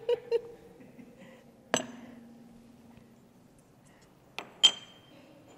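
Dishes and utensils clinking on a counter. A single knock about two seconds in is followed by a short low ring, and two quick clinks come near the end, the second ringing briefly.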